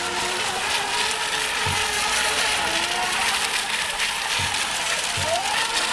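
Several electric RC racing boats running together, their motors whining over a steady hiss, the pitch gliding up and down as they turn. There are a few short low thumps.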